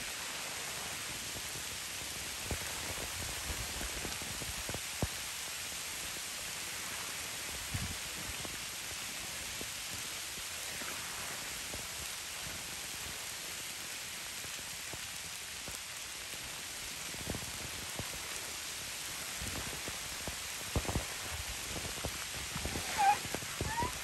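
Steady rain falling, with scattered drops striking close by. Near the end an Asian elephant starts a high, wavering squeak.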